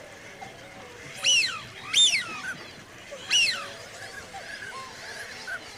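Three loud bird calls, each sweeping up and then down in pitch, the first two close together and the third about a second and a half later, over faint chirping of other birds.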